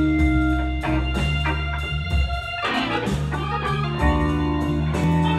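Live blues band playing: electric guitar over bass, drums and long held organ chords.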